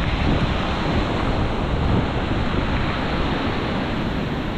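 Wind buffeting the microphone: a loud, steady rushing noise, heaviest and most gusty in the low end.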